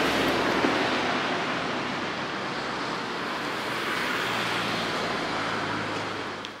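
Steady rushing noise of road traffic with a low engine hum under it, cutting off suddenly at the end.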